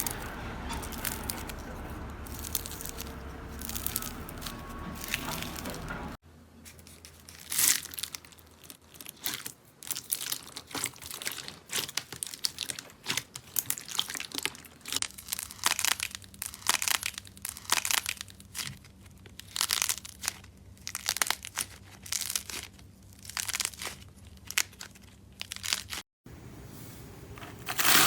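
Crunchy slime being squeezed and pressed, giving irregular crackling clicks and pops, with abrupt cuts between clips about six seconds in and near the end.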